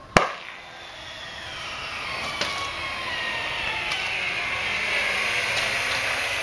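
A single sharp, loud pop as HHO (oxyhydrogen) gas ignites, then a hiss that grows steadily louder with a few faint clicks.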